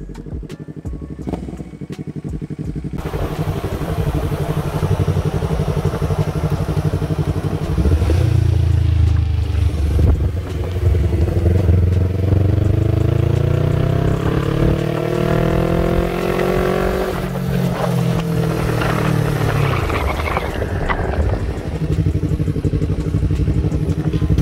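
Yamaha MT-03 parallel-twin engine running as the bike is ridden: the engine note climbs in pitch about halfway through as it accelerates, then drops back and settles to a lower, steady run as the bike slows.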